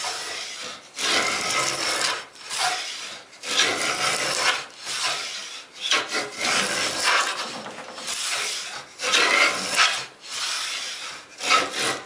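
Stanley 45 combination plane with a 1/4-inch straight cutter plowing a 1/4-inch-deep groove along a wooden door stile: a run of short rasping cutting strokes, about one a second, each pulling off a shaving.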